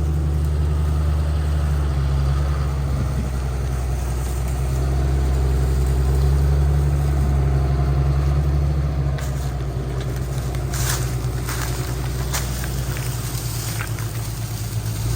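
Engine running steadily with a deep, even hum, and a few sharp clicks or knocks over it in the second half.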